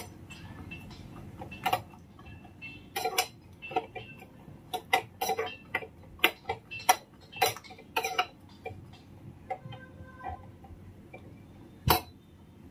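Peanuts being stirred in hot oil in a metal pan: a spoon clinks and knocks against the pan in an irregular run of sharp strikes, with one heavier knock near the end.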